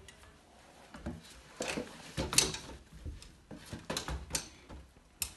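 A person climbing up through an attic hatch with a cardboard box: a string of irregular knocks, bumps and scuffs, the loudest a little over two seconds in.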